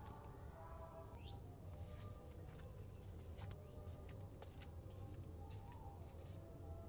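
Faint bird chirps, one rising chirp about a second in, with scattered light ticks over a low steady rumble.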